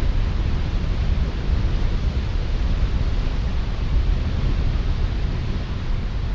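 Wind buffeting the camera microphone: a steady low rumble with hiss above it and no distinct events.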